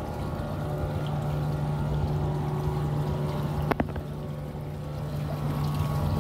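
Water pouring from a fountain spout into a stone pool, over a steady low hum. A single sharp click a little before four seconds in.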